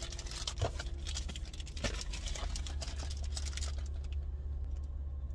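Light clicks, taps and rustles of a glasses case and cardboard packaging being handled and packed away, over a steady low hum inside a car. The handling noises die down about three seconds in.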